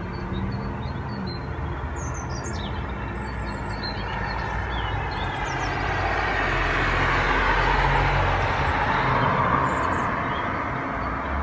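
Road traffic: a car passes on the road, its tyre and engine noise swelling to a peak about two thirds of the way through and then easing off. Small birds chirp faintly over it.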